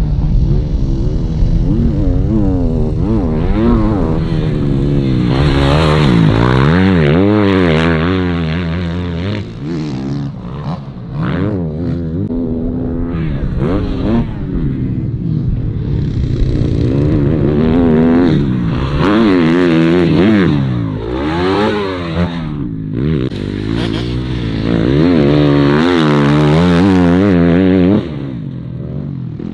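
2025 Suzuki RM-Z250's single-cylinder four-stroke engine being ridden hard on a motocross track, revving up and down again and again as the throttle opens and closes. The level drops suddenly near the end.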